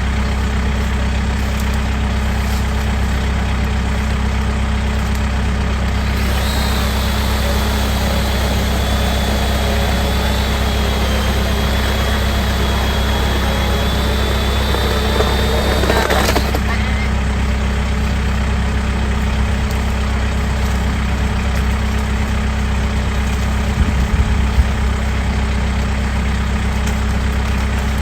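Kubota M7060D tractor's four-cylinder diesel engine running steadily. A thin high whine joins it for about ten seconds in the middle, dipping slightly and then rising before it cuts off.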